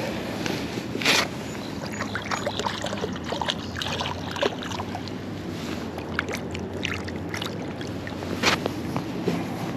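A hand scraping and rubbing on a rough concrete slab, with many small scrapes and two louder ones, about a second in and near the end. Under it runs the steady wash of the flowing river.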